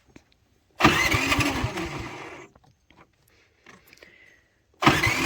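Predator generator engine cranking on its electric starter in two bursts of well under two seconds each, the second starting near the end. It turns over but never fires: the generator will not start.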